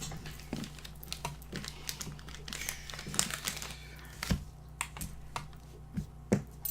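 Small objects being handled on a tabletop: irregular light clicks and taps with a stretch of crinkling in the middle, then a few louder knocks near the end.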